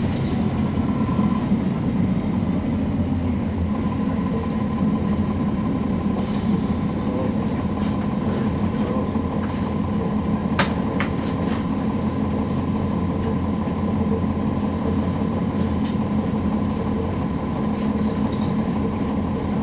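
Cabin sound of a NABI 40-SFW transit bus with a Cummins ISL9 straight-six diesel and ZF Ecolife automatic transmission: a steady low drone with a thin steady whine above it. A few sharp rattling clicks come about ten, eleven and sixteen seconds in.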